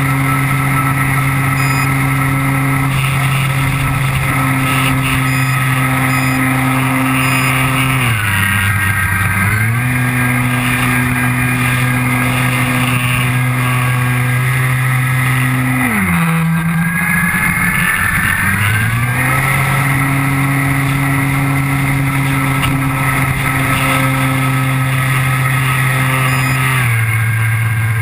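RC model airplane's motor and propeller heard from on board the plane, running at a steady pitch. The pitch drops briefly about eight seconds in and again for about three seconds from around sixteen seconds as the throttle is eased back, then rises back to the cruising note.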